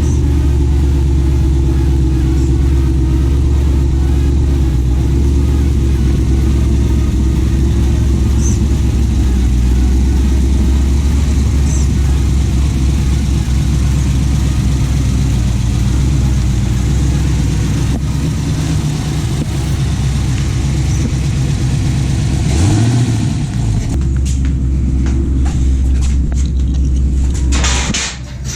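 A car engine running with a steady low rumble, along with vehicle noise. The sound shifts about 23 seconds in, and there are a few sharp clicks near the end.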